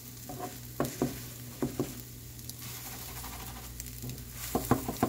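Plastic spatula tapping and scraping on a nonstick frying pan as it chops an omelet into pieces, over a faint steady sizzle of egg frying in oil. A few sharp taps come about a second in, then a quick run of taps near the end.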